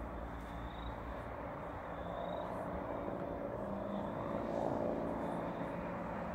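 Bell 412EP twin-turbine helicopter flying past, a steady drone of engines and rotor that swells slightly a little after halfway.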